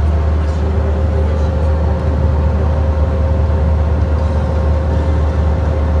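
Bobcat excavator's diesel engine running at a steady speed, heard from inside the cab as a loud, even, deep drone.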